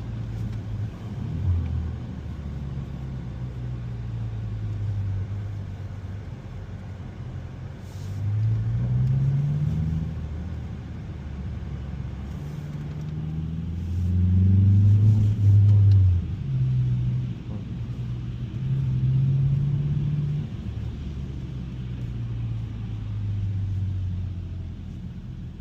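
2021 Mazda 3 Turbo's 2.5-litre turbocharged four-cylinder engine running at low revs on the move, its pitch rising several times as the car accelerates and dropping back as it eases off, loudest about two-thirds of the way through.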